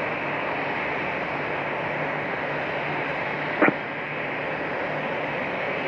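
Steady hiss of an air traffic control radio feed between transmissions, with a faint hum and one short click a little past halfway through.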